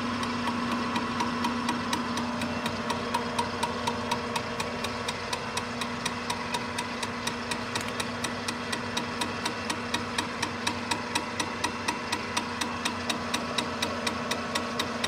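Milling machine running with its face mill at 250 RPM on a facing pass across an aluminium water pump housing: a steady machine hum with a regular tick about four times a second.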